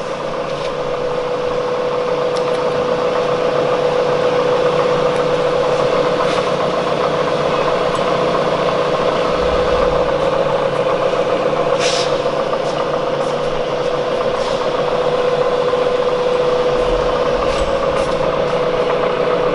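Bridgeport Series I 2 hp vertical mill spindle running steadily under variable speed control, pretty quiet, with a steady mid-pitched whine over the mechanical hum. It grows a little louder over the first few seconds. There is a single click about twelve seconds in.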